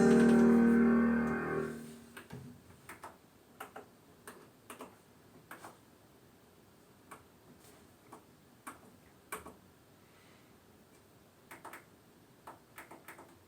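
Keyboard and backing-track music dies away over the first two seconds, then a series of light, irregular clicks: button presses on a Roland E-500 keyboard's panel while selecting the next sequencer song.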